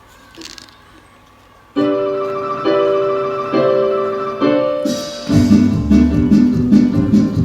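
Instrumental introduction to a song: sustained piano chords come in about two seconds in and change roughly once a second. A fuller, louder accompaniment with a bass line joins about five seconds in.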